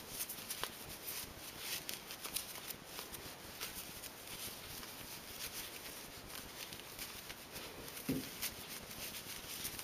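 Faint rustling and scratching of a hand-knitted toy body being turned right side out through its stuffing opening, with scattered small clicks from the fabric being handled.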